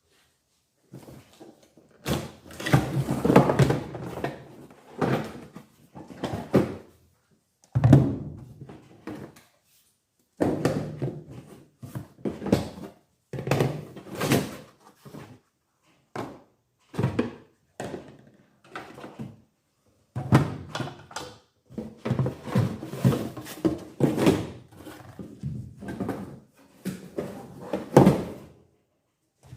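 A series of thunks and knocks in short bursts, broken by abrupt silent gaps.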